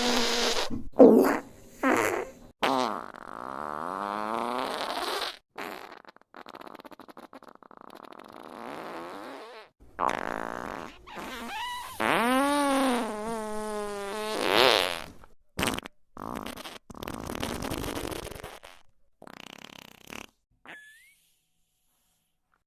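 A rapid series of fart sound effects, about a dozen in all: short sputtering ones and longer drawn-out ones. About halfway through, one long pitched fart wavers in pitch before settling, and near the end comes a short rising squeak.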